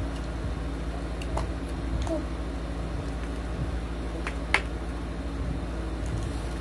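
Steady low background rumble with a few light clicks and taps of small plastic toys being handled; the sharpest click comes about four and a half seconds in.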